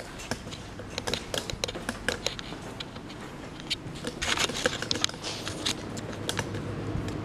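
Footsteps crunching and scuffing over grit and debris on a hard floor: a string of irregular sharp crackles, with a longer scuffing patch just past halfway.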